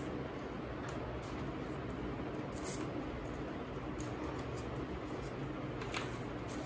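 Steady low hum with faint rustling and a few small crinkles and clicks from hands handling a wet wipe and a small paper dry-wipe sachet.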